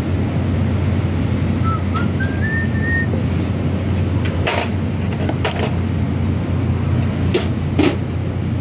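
Steady low hum with a few sharp metal clicks as a screwdriver tightens a supply cable onto a welding machine's terminal. A short rising whistle about two seconds in.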